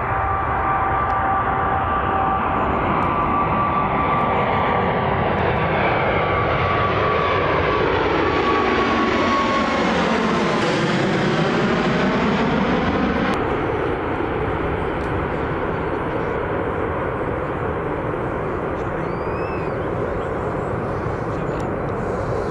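Airbus A380's four turbofan engines at take-off power as it climbs out overhead: steady jet engine noise with a high fan whine at first, then a whooshing sweep that falls and rises again as the jet passes over. After an abrupt cut about two-thirds of the way through, the steady engine noise of an A380 climbing away.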